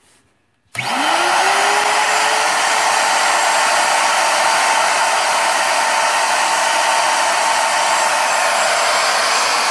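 Porter-Cable D-handle router switched on about a second in: its motor spins up with a quick rising whine and then runs unloaded at full speed with a loud, steady whine and rush of air.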